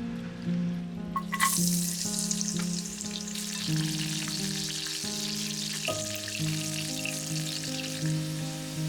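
Food frying in a hot pan: a sizzle that starts suddenly with a couple of clicks about a second and a half in and then runs on steadily.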